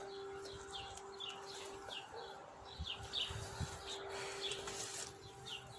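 A bird gives short, falling chirps, one every half second or so. Beneath them runs the steady, faint tone of a distant warning siren holding one pitch.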